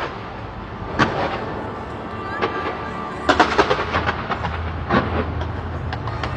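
Fireworks going off: sharp bangs about a second in, at about two and a half seconds, a quick run of several near three and a half seconds and another near five seconds, over a continuous crackle of smaller reports.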